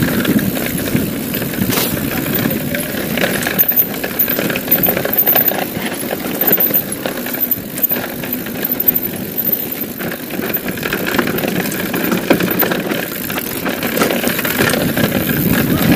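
A mountain bike descending a rough dirt singletrack at speed: wind noise on the rider's camera microphone mixed with tyre rumble and the rattle of the bike, with occasional sharp knocks from bumps in the trail.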